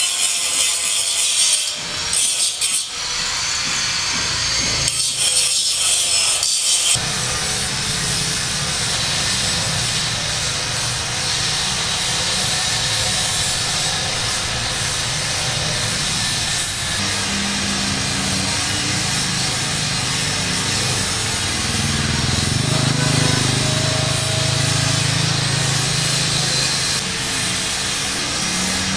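Continuous rasping construction-tool noise, like sawing, changing character a few times. A low hum joins it about halfway through.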